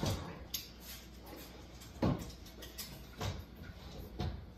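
A dog barking in the background: several short barks spaced about a second apart, the loudest about two seconds in.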